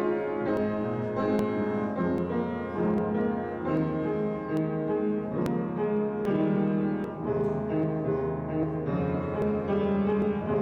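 Instrumental piano music: a slow passage of sustained chords.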